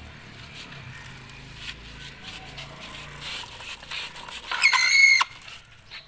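Homemade toy tractor's small wire-powered electric motor and wheels running as it crawls over dirt, a faint whir with scattered light clicks. About four and a half seconds in, a short high-pitched squeal, the loudest sound, lasting just over half a second.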